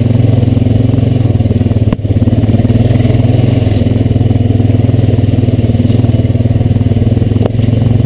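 Honda Rancher 420AT ATV's single-cylinder four-stroke engine running steadily at low trail speed, with a short knock and momentary dip about two seconds in.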